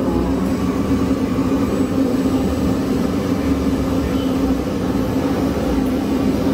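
Electric air pump or blower running with a steady drone and a constant low hum, drawing the air out of a large inflatable fabric installation as it deflates.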